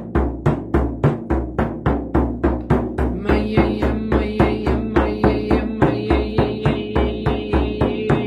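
Hand-held frame drum struck with a padded beater in a steady, even beat of about four strokes a second. From about three seconds in, a sustained sung tone on one note joins the drumming.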